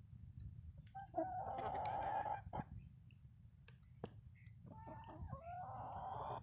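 Black Sex Link chickens calling: two drawn-out calls, one about a second in and a second near the end, with a few sharp clicks between them.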